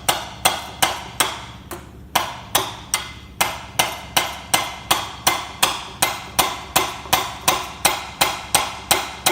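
A hammer tapping a string trimmer's square drive shaft up through its tube to seat it in the clutch, in a steady run of light blows about three a second with a short pause about two seconds in.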